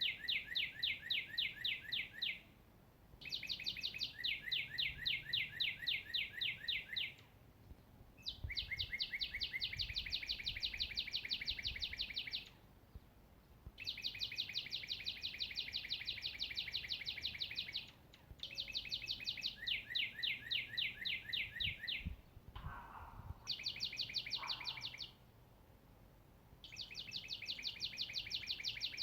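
A songbird singing a long, even trill of rapid, evenly spaced notes, each phrase lasting a few seconds and repeated over and over after short pauses.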